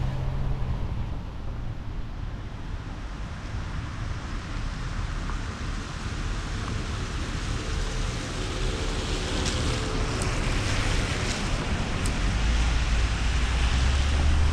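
Wind rumbling on the microphone over the hiss of tyres on wet pavement as a car drives along a rain-soaked street. The hiss grows louder in the second half.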